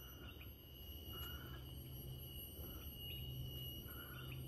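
Forest insects giving a steady high-pitched whine, with a few short chirps over it and a low rumble underneath.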